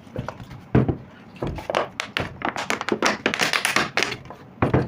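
A series of taps and knocks on a hard surface: a solid thunk about a second in, a dull thump just after, then a quick run of clicks and taps.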